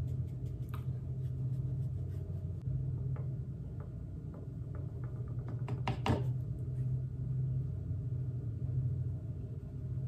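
Light clicks and taps of makeup brushes and cosmetics being handled, over a steady low room hum. A run of small ticks leads into a louder cluster of clicks about six seconds in.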